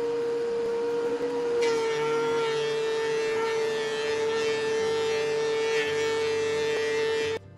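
DeWalt benchtop thickness planer running with a steady high whine, joined about a second and a half in by the harsher hiss of its knives cutting a pine board fed through it. The sound cuts off abruptly near the end.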